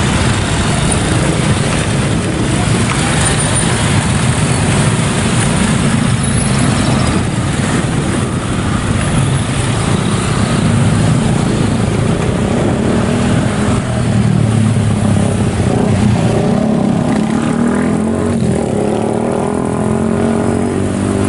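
Heavy mixed road traffic passing close by: many small motorcycle engines together with a truck, a pickup and cars, all running at low speed in a continuous, steady mass of engine sound.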